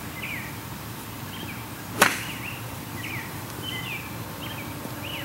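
A golf club striking a ball once on a chip shot off grass: a single sharp click about two seconds in. Birds chirp repeatedly in the background.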